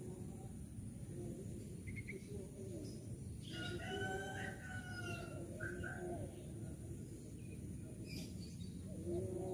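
A rooster crows once, starting about three and a half seconds in: one long call of about a second and a half, over a steady low background noise.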